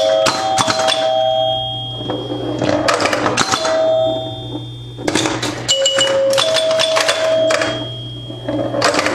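1974 Bally Champ electromechanical pinball machine in play: bursts of relay and stepper-unit clicking, each followed by its chime bells ringing out for about a second, over a steady low hum.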